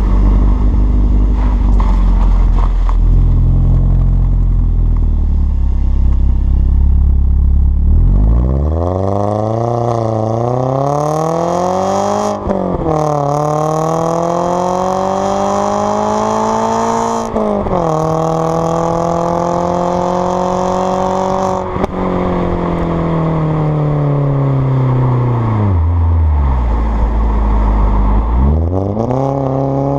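Alfa Romeo Brera S 2.2 four-cylinder engine heard at the tailpipes through a stainless steel cat-back exhaust with the centre silencer removed and Prodrive back boxes. After a low rumble for the first several seconds, the note climbs in pitch as the car accelerates, breaking twice at gear changes, then falls away as it eases off, and climbs again near the end.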